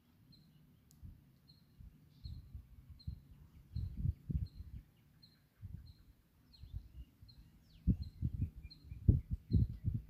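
Spoon stirring thick mango pickle in a metal pan, giving irregular low knocks and thuds that grow heavier in the second half. A bird chirps steadily in the background, short high chirps about twice a second.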